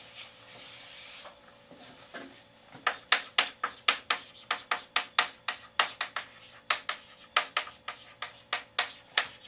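Chalkboard being erased and written on: a soft rubbing hiss for about the first second, then, from about three seconds in, a run of sharp chalk taps and clicks, roughly three a second, as words are chalked onto the board.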